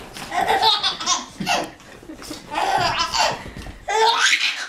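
Baby laughing hard in three bouts of belly laughter, each about a second long.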